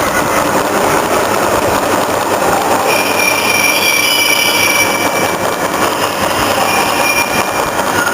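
Radial drilling machine's spindle gearbox running, a loud steady metallic clatter with a high gear whine. About three seconds in the whine changes to a new, higher set of tones.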